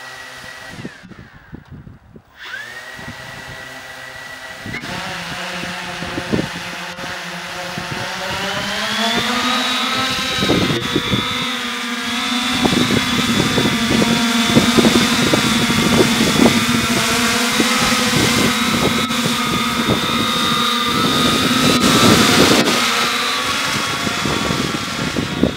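Octocopter's eight electric motors and propellers spinning up and lifting off, then holding a steady multi-tone hum. The pitch steps up about five seconds in and again about nine seconds in. Gusty wind buffets the microphone throughout.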